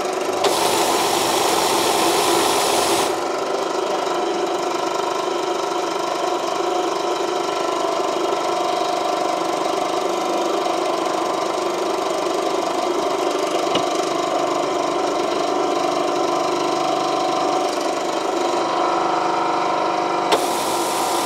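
Motor and pump of a powered hydraulic workshop press running steadily, a continuous hum with a whine, while the press is set up to push a cylinder liner into an engine block. A higher hiss joins in for the first few seconds and again near the end.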